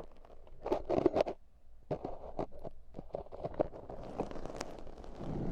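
Ear-cleaning tools scratching and rubbing on an ASMR microphone, in irregular strokes with sharp clicks.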